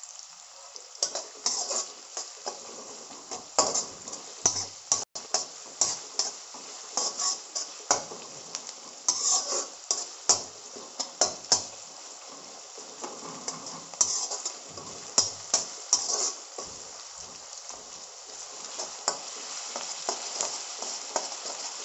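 Sliced onions sizzling steadily in hot oil in a metal wok while a metal spatula scrapes and clinks against the pan in irregular stirring strokes, fewer near the end. The onions are being fried until brown.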